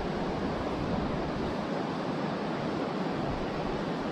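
Steady rush of river water running over a riffle of rapids.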